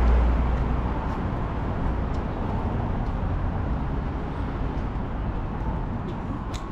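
Outdoor street ambience: steady road traffic noise with a deep low rumble that slowly fades, and a sharp click near the end.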